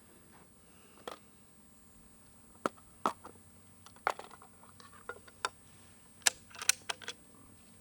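Squirrels scrambling in the trees overhead: irregular sharp clicks and scratchy rustles, a quick cluster of them near the end.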